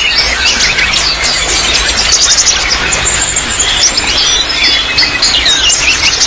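Many songbirds chirping in quick, overlapping calls over the steady sound of trickling water.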